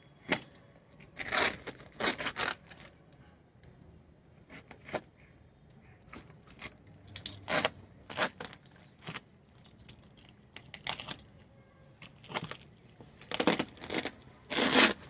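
Brown packing tape being peeled and ripped off cardboard-wrapped plant rolls, in a dozen or so short, irregular tearing rips with pauses between them, the longest and loudest near the end.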